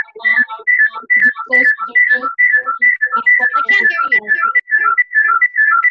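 Echo feedback loop on a video call: a whistling chirp repeats about three times a second, each chirp stepping down in pitch. Garbled voice sound is caught in the loop for the first few seconds, then fades out. The echo comes from one participant being connected to the call twice.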